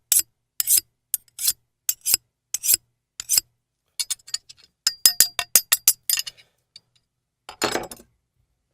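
Knife being sharpened: a steel blade scraped in short, sharp strokes about two a second, then a faster flurry with a brief metallic ring about five seconds in, and one longer stroke near the end.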